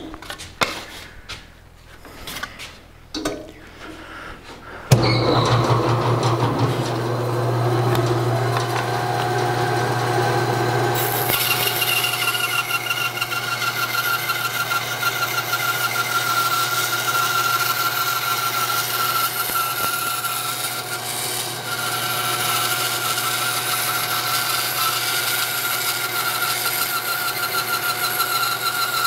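A few knocks as wood is handled, then a bandsaw switched on about five seconds in, running with a steady hum. From about eleven seconds its blade rips a thin board lengthwise against the fence, a steady cutting noise with a high whine, to the end.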